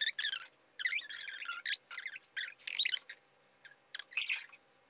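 Fast-forwarded voices: talk sped up into high-pitched, squeaky chirps in short, choppy bursts, dying out shortly before the end.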